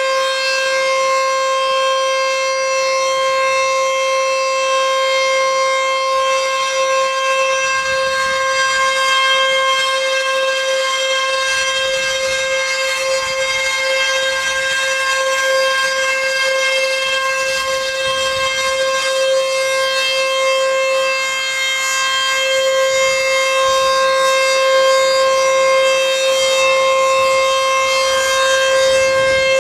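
ACA Screamer S-2 outdoor warning siren sounding a steady wail, holding one constant pitch. It dips briefly in loudness a bit past two-thirds of the way through.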